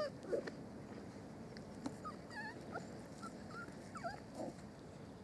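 Young puppies, nearly six weeks old, giving short, high whimpers and squeaks: a few near the start, a few about two seconds in and a couple about four seconds in, all faint.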